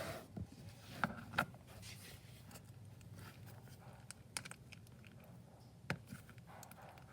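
Slime being stirred and mixed: faint sticky clicks and pops over a low hum, with a few sharper ones about a second in and again near six seconds.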